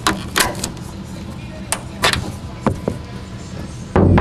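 Background music with several sharp clicks and knocks scattered through it, then a loud low thud near the end.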